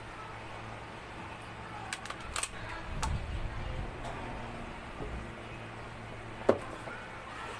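Small clicks and taps of metal fan-motor parts being handled during reassembly, with one sharp knock near the end, over a faint steady hum.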